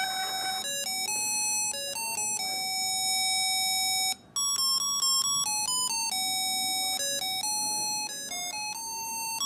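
UM66 melody generator IC, amplified by a BC547 transistor, playing an electronic tune through a small speaker: single beeping notes step from one pitch to the next, cutting out briefly about four seconds in.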